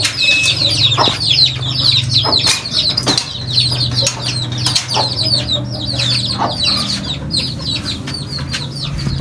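Chickens clucking and many chicks peeping in quick, high, falling chirps, with a few sharp clicks scattered through, over a steady low hum.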